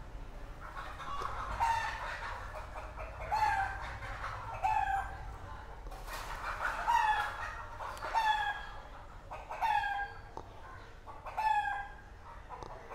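Chickens calling: a series of about seven short calls, one every second or two.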